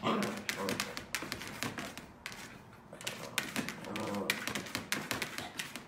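A small terrier rummaging with its nose in a clear plastic bucket of toys: quick, irregular clattering and tapping of plastic.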